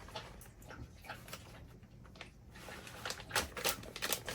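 Small scattered clicks of food handling, then from about three seconds in a rapid crackly crunching and crinkling of tortilla chips being crushed.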